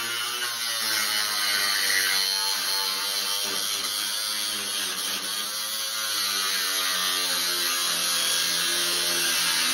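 Corded electric power tool cutting a corrugated metal roofing panel: a continuous motor buzz with a hissing cutting noise, its pitch slowly wandering up and down as the tool is pushed along the sheet.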